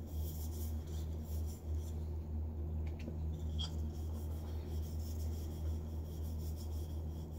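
A hand rubbing jojoba wax oil into a turned wooden bowl: a soft, scratchy rubbing with a couple of faint ticks about three seconds in. A steady low hum runs underneath throughout.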